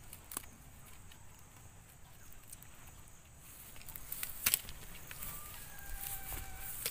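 Hands working the soil and pulling at the old board edging of a raised planting box: faint rustling and scraping with a few sharp knocks, the loudest pair about four and a half seconds in. Faint thin steady tones sound near the end.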